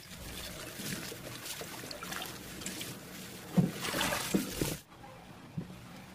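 Kitchen tap running into a plastic basin as a terry towel (a cloth diaper insert) is rinsed and squeezed in the water, with splashing and sloshing. The tap is shut off about five seconds in, leaving only a few small knocks.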